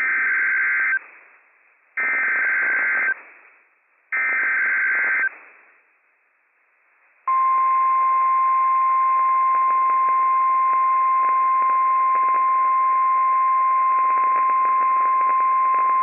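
NOAA Weather Radio Emergency Alert System signal: three short warbling SAME header data bursts, each about a second long with a second's gap between them, encoding a Required Monthly Test. About seven seconds in, the steady 1050 Hz weather radio warning alarm tone starts and holds over receiver hiss; this tone triggers alert receivers.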